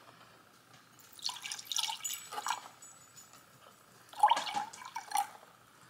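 Orange juice pouring from a plastic bottle into a glass, splashing in two short spells: one about a second in, and a louder one about four seconds in.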